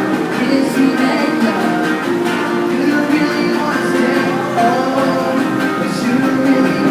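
Acoustic guitar being strummed, chords ringing on without singing.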